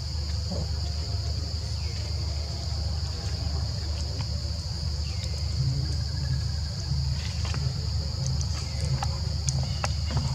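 Steady high-pitched drone of insects, over a constant low rumble, with a few faint scattered clicks.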